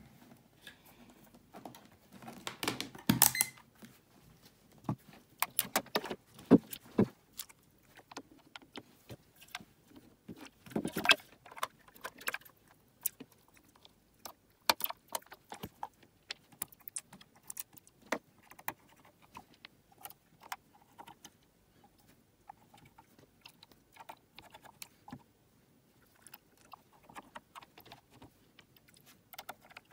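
Irregular metallic clicks, clinks and knocks of hands handling a power supply's sheet-metal case, test leads and small screws during reassembly, with a few louder knocks in the first dozen seconds.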